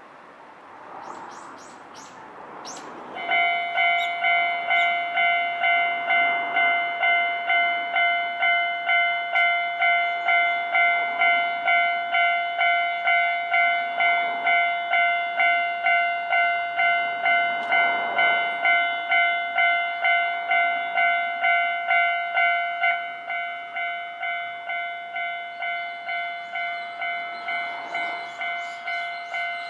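Japanese railway level-crossing warning bell starts about three seconds in: an electronic clanging that repeats about twice a second, warning of an approaching train. It drops to a lower volume a little over three quarters of the way through.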